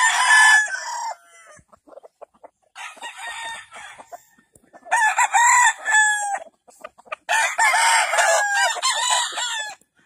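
Gamefowl roosters crowing, four crows one after another with short gaps between.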